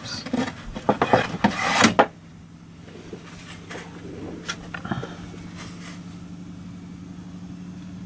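Handling noises: a couple of seconds of clattering and rustling as a plastic calculator ruler is picked up and brought over, then a steady low hum with a few faint clicks.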